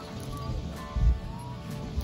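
Background music with steady sustained notes, and a short low thud about a second in.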